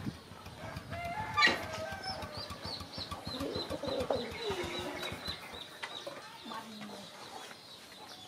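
Chickens clucking and calling in a farmyard, with a run of short high-pitched notes in the middle.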